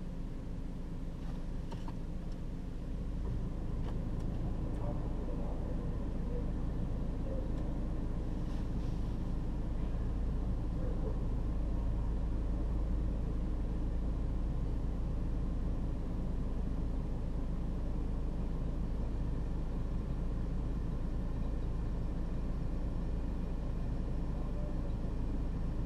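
Car engine idling with a steady low rumble, heard from inside the stopped car. It grows a little louder about three seconds in.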